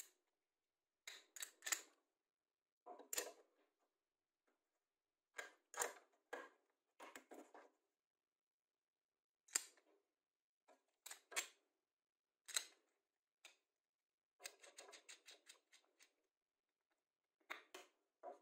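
Small metal hardware (bolts, nuts, washers and a small wrench) clicking and knocking against a plywood jig block and the wooden workbench as the jig is assembled by hand. The clicks come singly and in short clusters, with a quick run of clicks about three-quarters of the way through.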